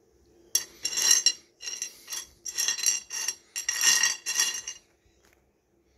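Pieces of rough opal clattering and clinking against each other as a hand stirs through the pile, in about five bursts of rattling over four seconds.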